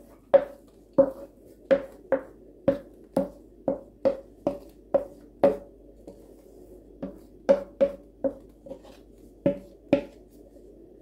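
Wooden spoon knocking against the inside of a steel bowl while yeast sponge is scraped out of it: sharp ringing knocks about two a second, with a short pause a little past the middle.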